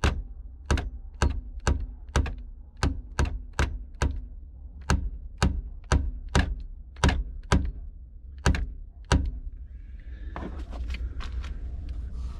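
A hammer tapping repeatedly, about two sharp strikes a second, stopping about nine seconds in. Fainter rubbing and small clicks follow near the end.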